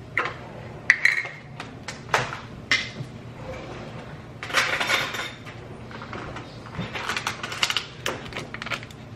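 Kitchen clatter: a series of sharp clicks and knocks of utensils and containers being handled, with a brief noisy scrape about halfway through and a quick cluster of clicks near the end, over a low steady hum.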